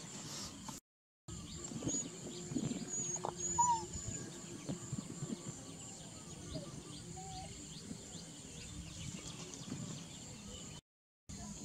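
Outdoor rural ambience: a steady high insect drone with a few short bird chirps and faint rustling. The sound cuts out to silence twice, briefly, about a second in and near the end.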